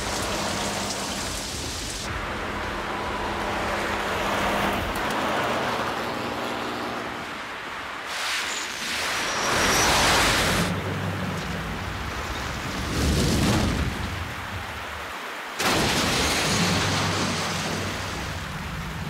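Heavy rain with thunder rumbling, in a cartoon soundtrack. The storm swells loudly twice, and about three quarters of the way in a sudden loud crash breaks in after a brief hush.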